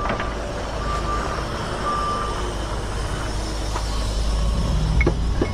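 Forklift backup alarm beeping three times, about once a second, over a steady low engine rumble. A few sharp clicks come near the end.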